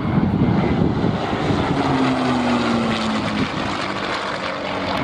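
P-51 Mustang's Rolls-Royce Merlin V-12 engine running at display power overhead, a loud, dense propeller drone. The engine note slides down in pitch from about a second and a half in as the aircraft flies past.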